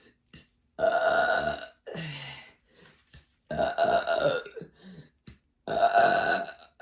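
A woman belching loudly several times in a row, about four burps each under a second long with short pauses between them, one falling in pitch. This is the gas from a liter of sparkling water coming up out of a full stomach.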